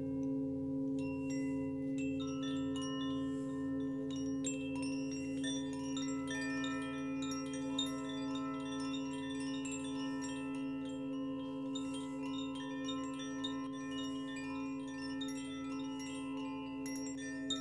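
Hanging metal wind chimes being played, many clear ringing tones of different pitches struck one after another and overlapping as they sustain, above a steady low drone with a slow throb.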